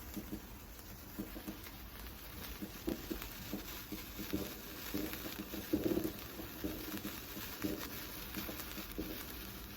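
A firework fountain fizzing and crackling: a steady hiss with faint irregular crackles, and a short dull sound about six seconds in.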